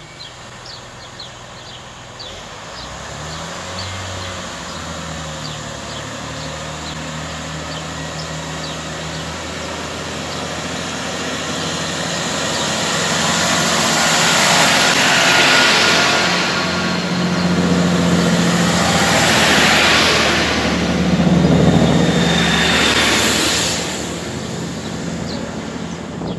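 A Great Western Railway intercity multiple-unit train pulling out along the platform, with its underfloor engines running and the noise building steadily. Three louder swells of rushing noise come about halfway through and toward the end as the carriages pass close by.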